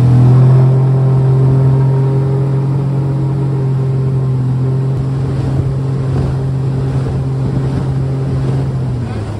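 Mercury 25 jet four-stroke outboard running at speed, driving the boat with a steady engine note. The note drops off near the end as the throttle eases.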